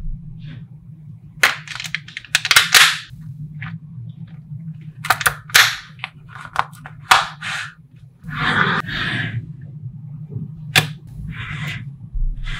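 Small magnetic balls snapping and clacking together as they are joined and pulled apart: sharp, irregular clicks, some in quick clusters, with a longer rattle about eight seconds in.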